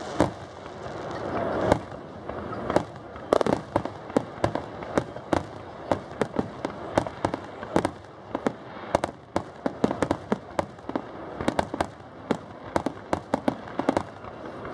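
Aerial firework shells launching and bursting in a rapid, continuous barrage of bangs, several a second, as in a display's grand finale.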